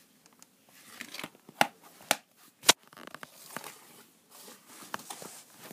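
Plastic DVD case being handled, closed and set down: a few sharp clicks and knocks, the loudest three close together in the middle, amid light rustling of the case and its paper insert.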